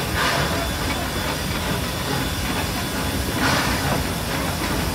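Steam locomotive rolling slowly with a steady rumble, with two bursts of steam hissing, one near the start and one about three and a half seconds in.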